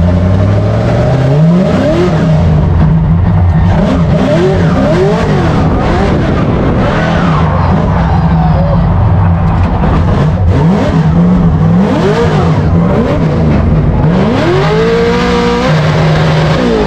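Drift car's engine heard from inside the cabin, revving hard with its pitch repeatedly climbing and dropping as the throttle is worked, with tires squealing as the car slides.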